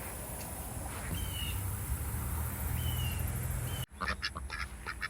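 Ducks quacking in quick, repeated calls, starting suddenly about four seconds in. Before that there is only outdoor background noise with a couple of short chirps.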